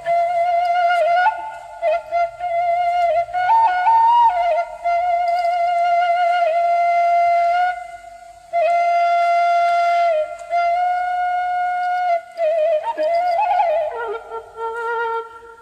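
Background music: a solo flute melody of long held notes with vibrato, broken by a few quick ornamented runs and a short pause about halfway through.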